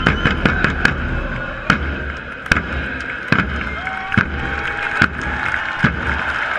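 Supporters' section drums struck with sticks: a quick run of hits, then single heavy strokes about every 0.8 seconds, over loud, steady stadium crowd noise.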